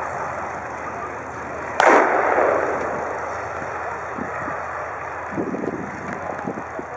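One loud bang about two seconds in, trailing off over about a second, over the steady running of a tank's engine and tracks.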